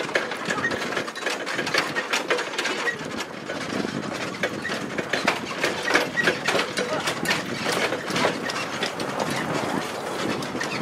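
A wheeled dog cart rattling and clattering as a sled-dog team pulls it along a rough dirt trail: a steady run of irregular clicks and knocks.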